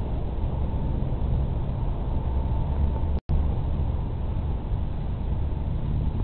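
Steady low rumble of wind buffeting an outdoor webcam microphone, with a faint steady hum. The sound drops out completely for an instant about three seconds in.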